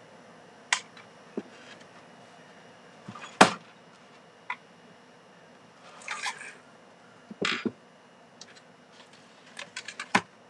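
Small objects being handled and set down on a table, heard as scattered clicks and knocks. The loudest knock comes about three and a half seconds in, and a quick run of clicks comes near the end.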